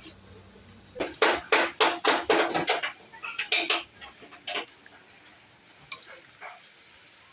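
Metal tools clinking and knocking against metal parts, a quick run of about eight sharp clinks in the second and third seconds, then a few scattered ones. It is brake work with the wheel off: parts being taken apart to reach the worn brake pads.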